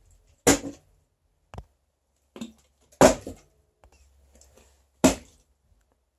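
Partly filled plastic water bottle thudding down after being flipped, three sharp landings about two and a half seconds apart with a few faint knocks between; the last landing leaves it standing upright.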